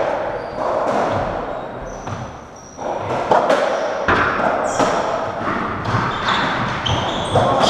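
Racketball rally: the ball struck by rackets and hitting the court walls and wooden floor, a series of sharp knocks roughly every half second to a second, with short high squeaks from shoes on the floor.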